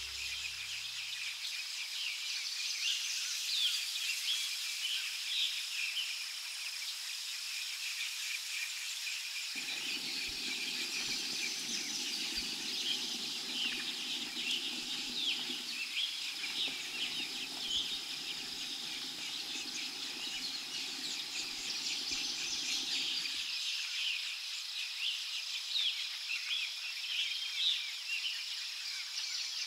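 Forest birds chirping and calling thickly and without a break, over a steady high tone. A low rustling noise comes in about a third of the way through and stops a few seconds before the end.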